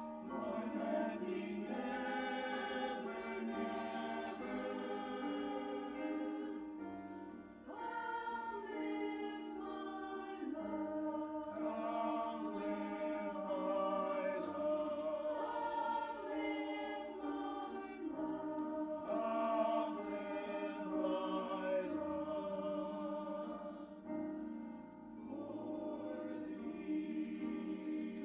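A choir singing slowly in long sustained chords, phrase by phrase with short breaks between phrases.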